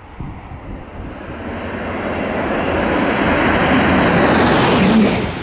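DB class 146 electric locomotive and its double-deck coaches passing close at speed, a steady rush of train noise growing louder as it comes near and goes by, loudest about five seconds in.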